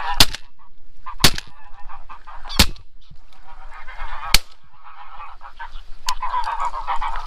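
Five shotgun shots, one to two seconds apart, fired at a passing flock of geese, with the geese honking between the shots.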